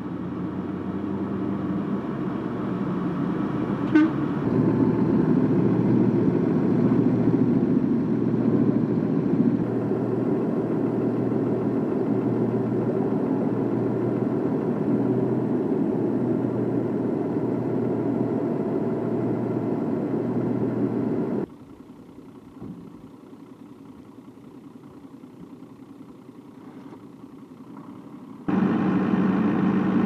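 Steady engine drone with a sharp click about four seconds in. It drops to a faint hum about two-thirds of the way through and comes back loud near the end.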